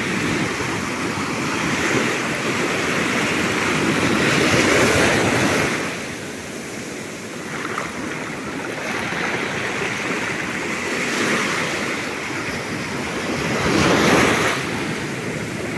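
Ocean surf breaking on a beach: a loud, steady wash of noise that swells and eases, loudest about four seconds in and again near the end, with wind on the microphone.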